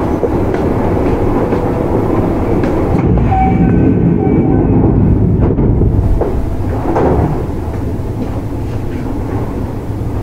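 Running sound heard inside a Kintetsu 1031 series electric train: wheels on the rails, with the tones of its Hitachi GTO-VVVF traction equipment. The level eases down a little about seven seconds in.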